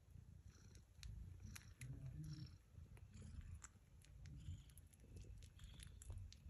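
Faint, low purring of a mother tabby cat, with scattered soft clicks and rustles as her kittens squirm against her fur.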